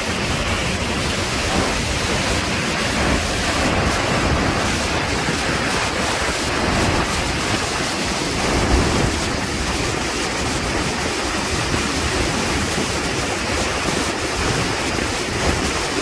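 Steady rush of white water as a full, brown river pours over wide rock steps of a waterfall and churns in the pool below, with wind rumbling on the microphone.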